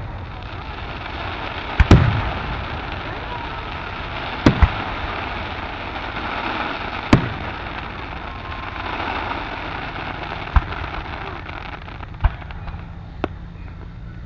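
Aerial fireworks going off in sharp booms at uneven intervals: a loud one about two seconds in, a quick double bang around four and a half seconds, another around seven seconds, then lighter pops near the end. Under them runs a steady murmur of crowd voices.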